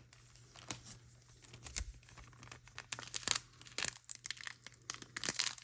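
Pokémon card booster pack wrapper crinkling and tearing as it is opened, a run of small sharp crackles that grows busier from about two seconds in.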